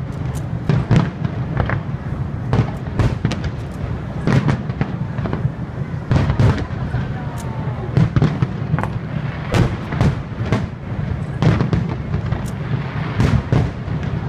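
Aerial firework shells bursting in a dense barrage: a steady run of sharp bangs, at times several a second, over a continuous low rumble.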